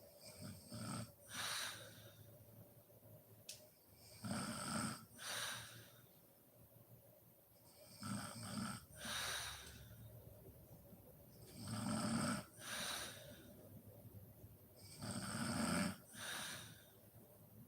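A woman snoring in deep sleep, close to the microphone. There are five slow, even breaths, about one every three and a half seconds, each a low snore followed by an airy exhale.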